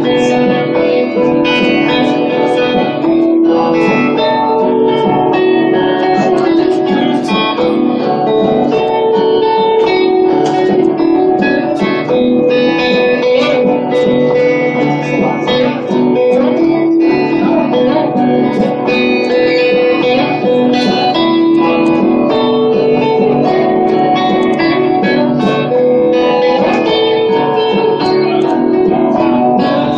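Experimental post-rock band playing live and loud: electric guitar with a drum kit and frequent cymbal hits.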